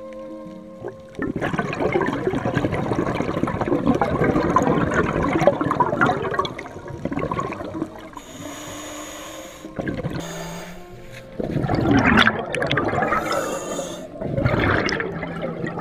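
Scuba diver's exhaled air bubbling out of a regulator, heard underwater close to the camera: a long rush of bubbles lasting about five seconds, then two shorter bursts near the end, in time with the diver's breaths out.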